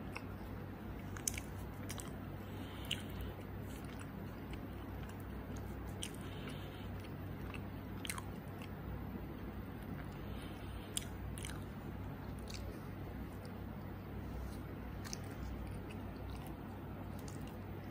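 Person biting and chewing a soft chocolate-cream-filled croissant, with scattered short sharp mouth clicks over a steady low hum.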